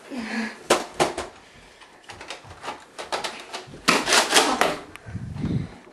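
Sharp plastic clicks and clatter from a toy Nerf blaster being worked, with a louder flurry of clicks about four seconds in.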